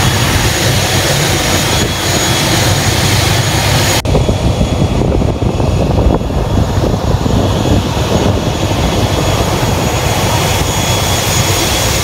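Turboprop airliner engines running: a steady loud noise with a thin high whine above it. About four seconds in the sound changes abruptly and turns rougher and more uneven.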